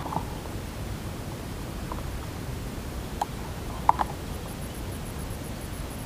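Steady low outdoor background noise with a handful of faint short clicks: one at the start, then more at about two, three and four seconds in, the last a quick double.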